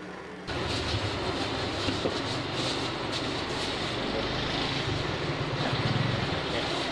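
Steady background noise of a shop, a low hum under an even hiss, that cuts in suddenly about half a second in.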